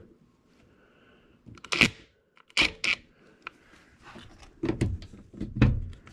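Sharp knocks and clatter of a cordless driver and hardware against a sheet-metal blower housing. There are a few separate strikes, then a busier run of knocking in the last couple of seconds.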